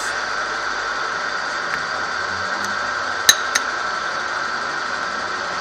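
Milling machine running with a steady hum, and about three seconds in a sharp metallic click followed by a fainter one: the dividing head's index crank plunger snapping into a hole of the 33-hole index plate as the gear blank is indexed to the next tooth.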